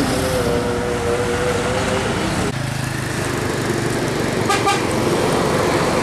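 A vehicle horn holding a steady two-tone chord over road traffic noise, which stops abruptly about two and a half seconds in. Then engines and traffic noise, with one short horn beep about three-quarters of the way through.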